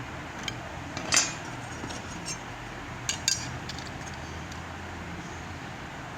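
Stainless steel stepper motor brackets clinking as they are handled: a handful of sharp metallic clinks, the loudest a little over a second in and a quick pair just after three seconds, over a steady low hum.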